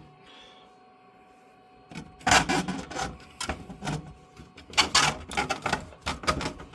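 3D-printed plastic motherboard tray being lifted out of its printed plastic case, clattering and scraping, with many sharp clicks and knocks. It starts about two seconds in.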